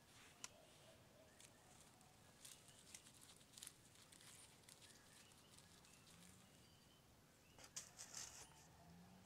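Near silence: faint scratching and rustling of hands working potting mix around a tall plastic tree pot, a little louder about eight seconds in, with a few faint high chirps behind.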